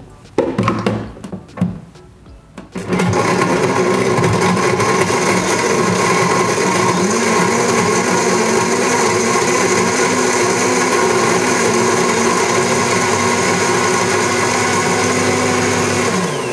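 Blendtec countertop blender crushing cube ice with banana, mint and rum into a frozen drink. A few knocks come first as the lid goes on. The motor starts about three seconds in and runs loud and steady, its pitch stepping up slightly partway through, then winds down near the end.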